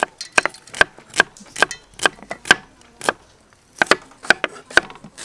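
Kitchen knives chopping red onions on a round wooden chopping board: sharp knocks of the blades on the wood, about two to three a second, with a short pause a little after three seconds in.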